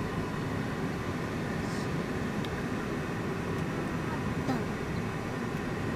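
Steady city street noise: a low rumble of traffic with faint voices of passers-by.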